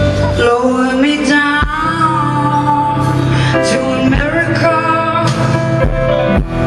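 Live band music with a woman singing: a gliding vocal line over sustained low bass notes, with a few scattered drum hits.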